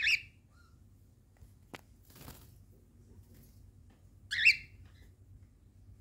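Cockatiel giving two short, loud calls, one right at the start and one about four seconds later.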